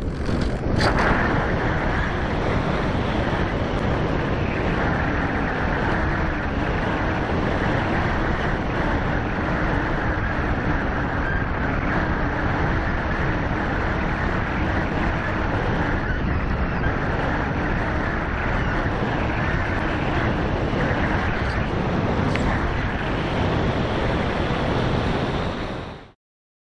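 Steady wind rush over the onboard camera of an Easystar 2 RC plane gliding with its motor throttled back, buffeting the microphone. It cuts off abruptly near the end.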